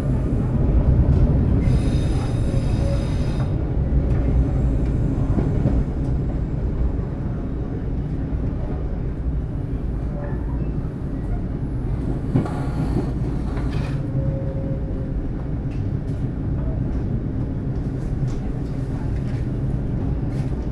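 Argo Parahyangan passenger train running along the track, heard from inside the carriage as a steady low rumble, with a brief louder rush about two-thirds of the way through.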